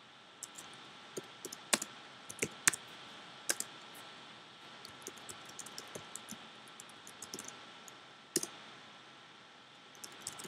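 Typing on a computer keyboard: uneven key clicks at a quick, irregular pace, with a handful of harder, louder strokes among them.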